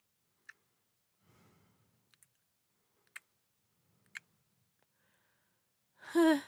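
A woman's short, wavering voiced sigh near the end, after a soft breath and a few faint, sharp clicks.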